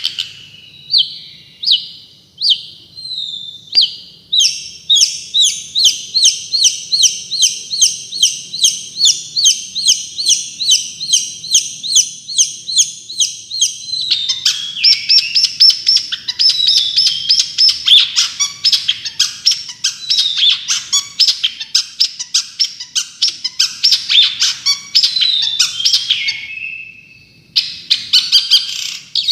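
Songbird singing a fast 'tembakan' song, the rapid-fire repeated phrase used in masteran recordings for training cendet (long-tailed shrikes). It starts with a few spaced notes, then runs into a long train of sharp notes at about five a second. About halfway through it switches to a denser phrase with downward slurs, and it pauses briefly near the end before resuming.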